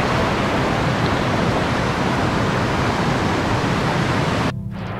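Rushing whitewater of a mountain creek's rapids, a loud steady rush of water. About four and a half seconds in it cuts off abruptly to a much quieter sound.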